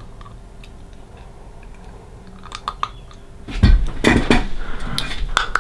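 Clear plastic dental aligner being pressed onto the upper teeth by finger, clicking and snapping against the teeth along with wet mouth sounds. A few faint clicks come first, then a louder run of clicks in the second half. The upper tray is not yet fully seated.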